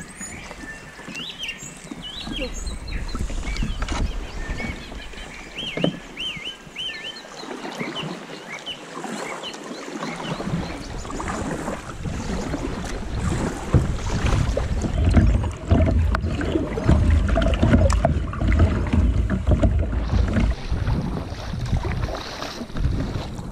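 A kayak being paddled on choppy water: paddle splashes and water sloshing against the hull. From about ten seconds in, strong wind buffets the microphone. Birds chirp over the quieter first part.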